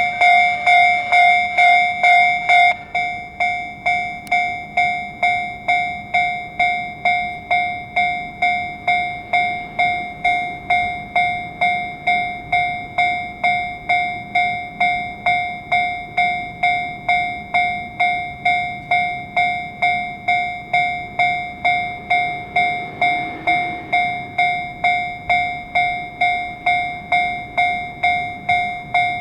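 Japanese railway level-crossing warning bell ringing in an even rhythm of about two strikes a second. For the first three seconds or so a second crossing bell rings along with it, louder, then stops.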